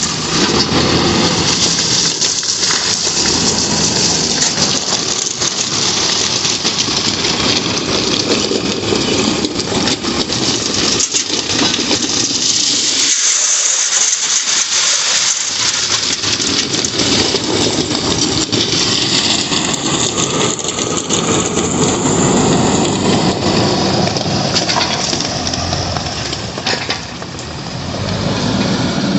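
JCB backhoe loader's diesel engine working under load, with crushed stone scraping and pouring in and out of the front loader bucket. The low engine sound drops away briefly about halfway through.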